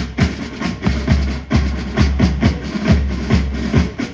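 Band drumming in a steady rhythm: deep bass-drum strokes with sharp clicks between them, several strokes a second.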